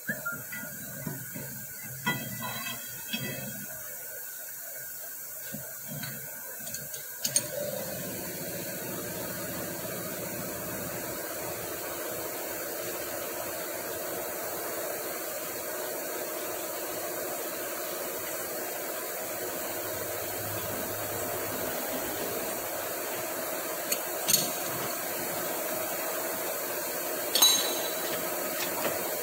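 Metal clinks and knocks as a brass hex nut is clamped in a three-jaw lathe chuck, some of them briefly ringing. About seven seconds in, after a sharp click, a machine's electric motor starts a steady hum with a faint hiss, and two sharp clicks come near the end.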